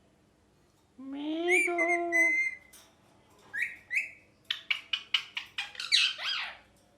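Pet ringneck parrot calling: a long whistled call that rises and holds about a second in, then two short high chirps and a quick run of sharp chirps and squawks.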